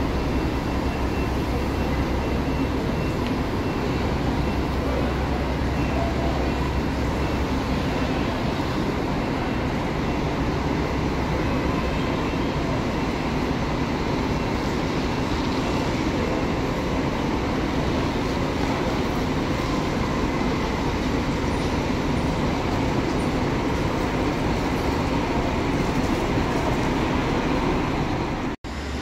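Intercity coach diesel engine running with a steady, loud rumble. A brief sudden break in the sound comes just before the end.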